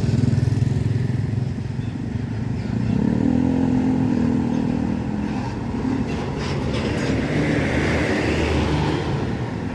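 Road traffic going past: an intercity bus's engine with motorcycles, the engine note swelling as a vehicle passes close by about three seconds in.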